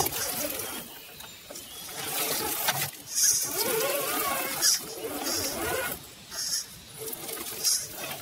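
Electric motor and gear drivetrain of a Reely Free Men RC crawler whining as it climbs over roots and rocks, the pitch rising and falling as the throttle is worked. Several short hissing bursts sound along with it.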